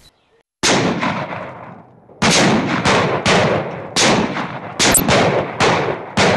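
Rifle fire: a single loud shot about half a second in, then a rapid string of a dozen or so shots, each with an echoing tail that runs into the next.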